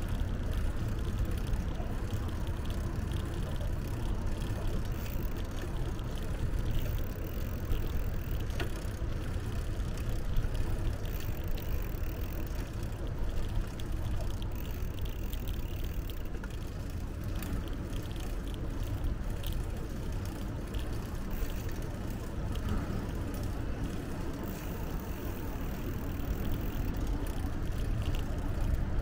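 Steady low rumble of a bicycle being ridden, wind and rolling noise on the microphone, with scattered small clicks and rattles.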